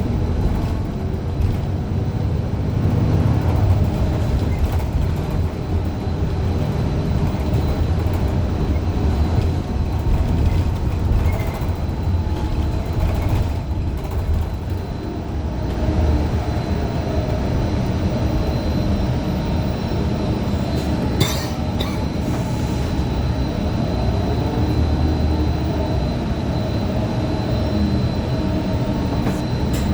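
Cabin ride noise of a 2015 Gillig Low Floor 40-foot CNG bus under way: the Cummins Westport ISL G engine and Allison B400R transmission running steadily with road rumble and rattles, a thin high whine from about halfway, and a brief clatter about two-thirds of the way in. The uploader calls this bus's transmission bad.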